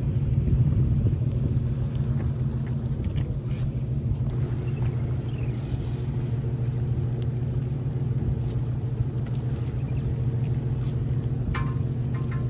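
An engine running steadily at idle, a constant low rumble with a steady hum. A brief higher-pitched sound comes near the end.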